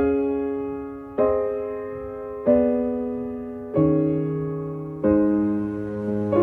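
Slow keyboard chords, one struck about every 1.3 seconds and left to ring and fade: background music.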